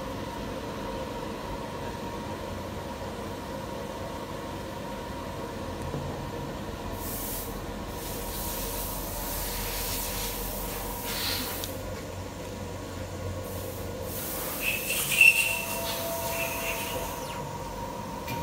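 4-axis CNC wood lathe running, with a steady motor whine as the wooden column spins, and hissing stretches of cutting as the spindle cutter carves the wood, twice: in the middle and near the end.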